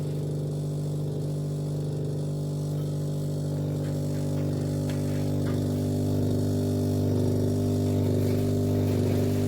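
Steady low electrical hum with a buzzing edge from the COMFEE retro under-counter fridge's compressor running.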